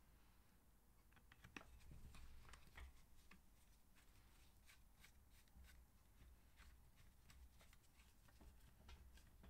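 Faint, irregular clicks and small scrapes of a hand screwdriver turning screws into a tail-tidy bracket.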